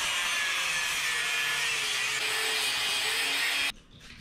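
Angle grinder with a cutting disc slicing through a steel bicycle frame tube: a steady, harsh grinding noise that stops abruptly about three and a half seconds in, as the cut goes through and the piece comes off.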